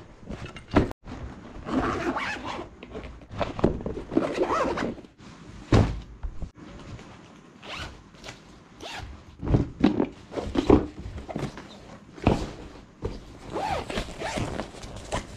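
Backpack zipper being pulled open and shut in short rasping strokes, with rustling and a few thuds of gear being packed into the bag.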